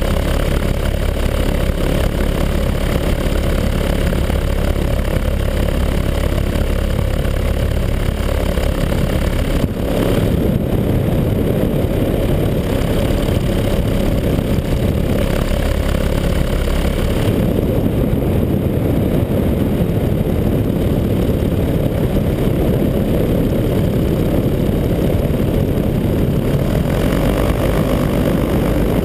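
Paramotor engine and propeller running steadily in flight. The sound shifts slightly about ten seconds in and again about seventeen seconds in, but does not stop.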